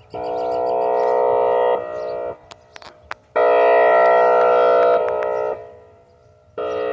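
Loud, unidentified horn-like blasts: three long, steady tones of about two seconds each that hold one pitch without rising or falling, with a few sharp clicks between the first and second blast.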